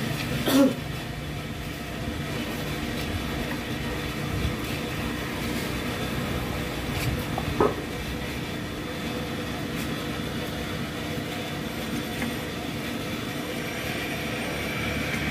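Boring machine turning a cutter bar inside a motorcycle crankcase's cylinder bore, reboring it with a steady mechanical hum. Two brief sharp chirps sound, just under a second in and about halfway through.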